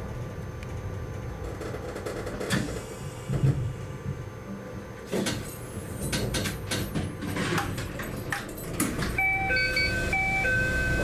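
Stopped narrow-gauge Yokkaichi Asunarou Railway train: a steady low hum with a run of clicks and knocks of sliding-door gear working. Near the end comes a short electronic chime of a few notes, played twice.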